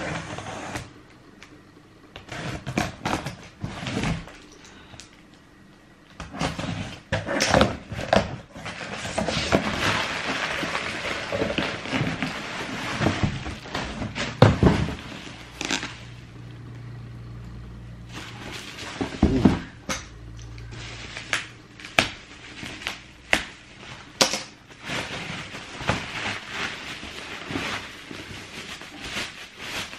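Packaging being handled and unwrapped: plastic and bubble wrap crinkling and rustling, with many scattered clicks and knocks, busiest in the middle.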